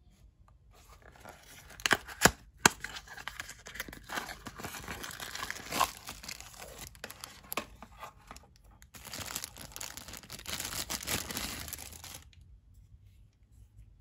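Thin plastic packaging bag crinkling and rustling as a small tripod is unwrapped, with a few sharp snaps about two seconds in as the cardboard box is opened. The crinkling stops near the end.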